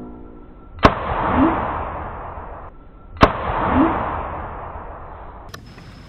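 Two sharp cracks about two and a half seconds apart, each followed by a long fading rush: a dubbed 'boom' drum-hit sound effect. A short rising squeak comes just after each crack.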